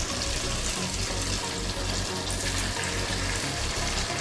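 Cubed idlis deep-frying in hot oil in a kadai, a steady sizzle.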